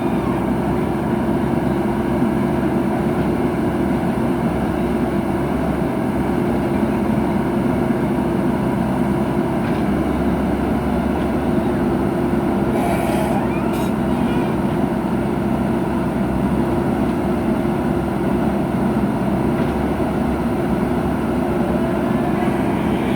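Heavy diesel engine of earthmoving machinery running steadily at a constant speed.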